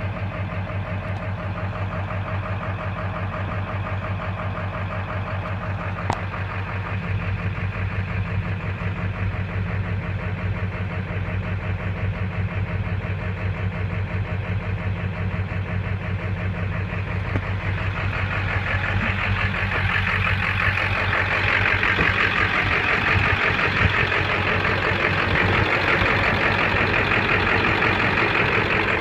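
2000 Ford F-350's 7.3-litre Power Stroke diesel, fitted with 200cc/80% hybrid injectors, running at a rough idle. The sound grows louder and brighter a little past halfway.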